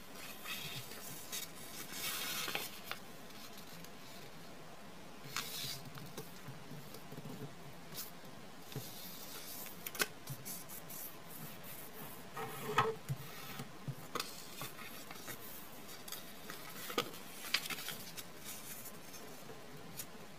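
Square origami paper being folded and creased by hand on a wooden tabletop: intermittent rustling and scraping as fingers run along the folds, with a few light clicks and taps. The busiest, loudest stretch comes about two-thirds of the way through.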